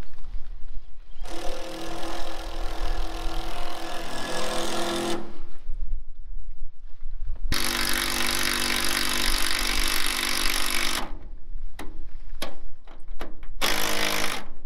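Cordless drill running against a corrugated steel roof sheet: two long runs of a steady motor whine, then several short bursts near the end. Wind rumble on the microphone underneath.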